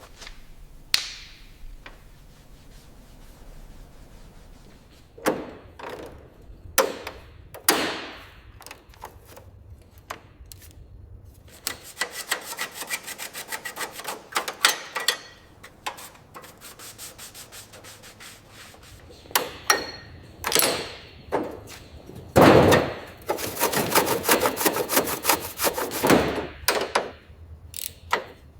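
Hand work on car parts: scattered knocks and clinks, then two stretches of fast, repeated scrubbing strokes, the second, near the end, the loudest.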